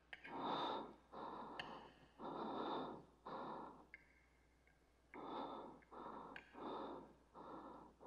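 A man's slow, heavy breathing, faint and coming about once a second with a short pause midway, with a few light clinks of cutlery.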